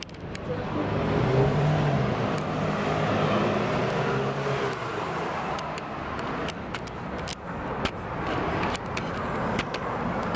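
Street traffic noise, with a motor vehicle passing, loudest about two seconds in. Several sharp clicks come in the second half.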